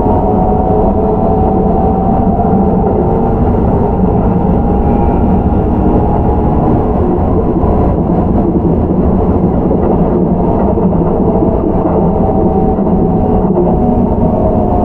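Keihan 13000 series electric train running, heard from inside the car: steady wheel-and-rail rolling noise with a faint whine from the Toyo IGBT-VVVF inverter and traction motors, present near the start and again near the end.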